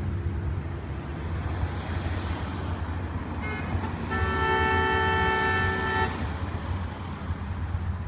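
Steady low traffic rumble, with a short high toot about three and a half seconds in, then a car horn held for about two seconds.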